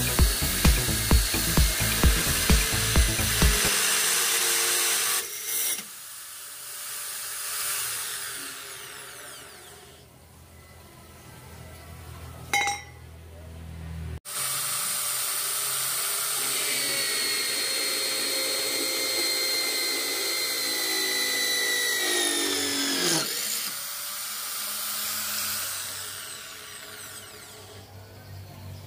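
Electric hand drill mounted in a drill stand, boring through steel: first a rusty steel pipe, then, after a cut, a steel bar. Its motor whine holds steady, then falls in pitch as it winds down a little after 23 s in.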